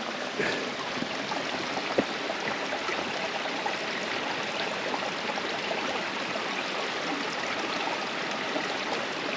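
A small babbling brook running over rocks: a steady, even rush of water, with a couple of faint ticks about half a second and two seconds in.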